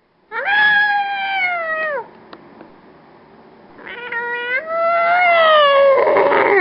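Two long, drawn-out meow-like wails. The first bends up and then falls away; the second starts about four seconds in, rises, and ends louder and harsher.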